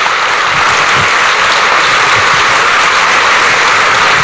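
Audience applauding steadily and loudly.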